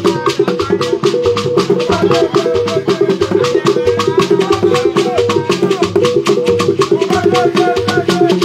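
Lively Igbo ogene highlife music: a fast, even shaker-and-percussion beat with a melody over a steady low tone.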